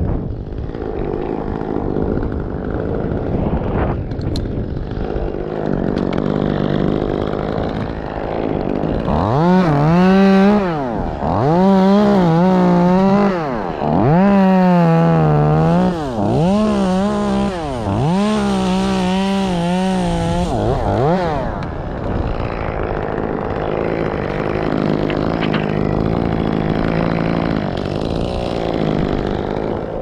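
Two-stroke chainsaw running, then revved to full speed about five times in quick succession, each burst held a second or two with the pitch dropping between, as it cuts through the cotoneaster's wood. Before and after the cuts it runs at lower revs.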